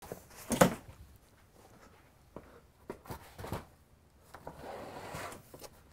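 Handling noises in a small room: a few scattered knocks and clicks, the loudest about half a second in, then a soft rustle near the end.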